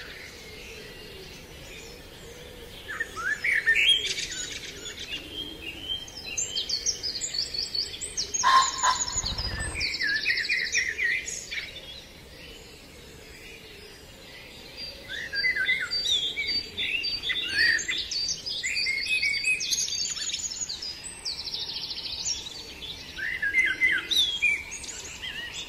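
Several songbirds singing together: overlapping chirps, whistled phrases and fast trills, busier in stretches. A short low rumble about nine seconds in.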